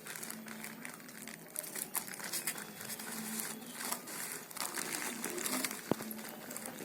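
Packaging crinkling and rustling as a phone's retail box is handled and unwrapped, with a single sharper click about six seconds in.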